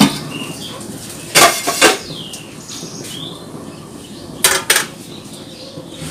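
Metal steamer pot and its lid clanking as stuffed squid is loaded in for steaming: two pairs of sharp clanks, about one and a half seconds in and again about four and a half seconds in.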